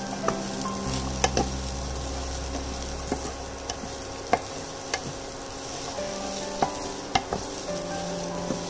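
Wooden spatula stirring chickpeas and grated coconut in a nonstick frying pan over the heat, with a faint steady sizzle and about ten sharp knocks of the spatula against the pan. This is the grated coconut being mixed into the tempered chickpeas for chana sundal.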